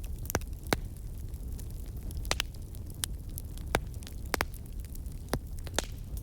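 Campfire crackling: burning wood giving sharp irregular pops, about seven here, over a low steady rumble.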